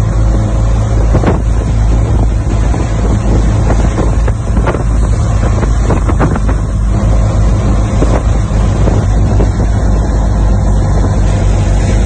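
Motorboat engine running steadily under way, with wind buffeting the microphone. A few short knocks come through, about a second in and again around five to six and a half seconds.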